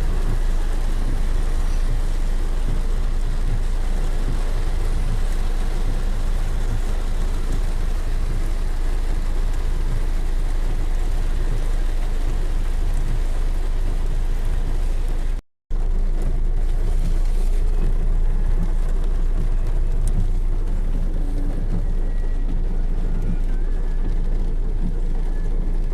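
Heavy rain pouring down steadily, a dense hiss over a deep rumble. It cuts out for an instant about halfway through and comes back with a little less hiss.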